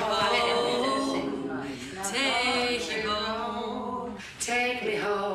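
Unaccompanied singing: a slow song sung without instruments, with long held notes that glide from one pitch to the next.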